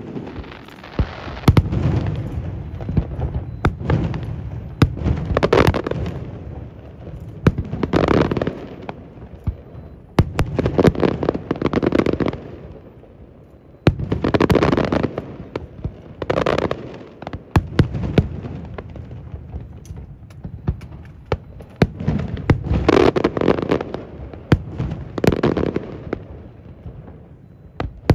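Aerial fireworks display: shells bursting one after another, sharp cracks over repeated rolling booms that swell and fade every second or two, with a short lull about halfway through.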